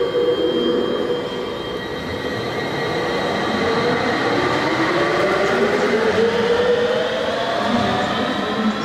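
Siemens VAL208 rubber-tyred automated light-rail train pulling away from the station, its traction drive whining in several tones that rise in pitch as it picks up speed, over the running noise of the train.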